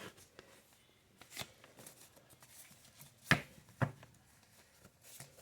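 Oracle cards being handled: light rustles and small taps, with two sharper clicks about three and a half seconds in.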